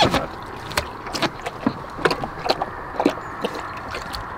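Cane Corso lapping water from a stainless steel bowl: irregular wet laps and clicks, about two a second.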